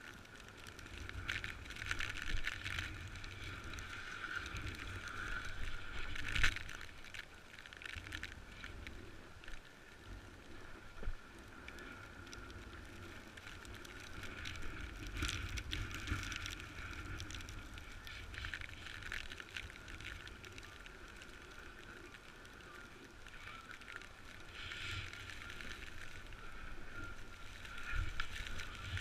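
Snowboard sliding and scraping over snow on a descent, with wind rumbling on the microphone; the scraping swells and fades, with a sharper scrape about six seconds in.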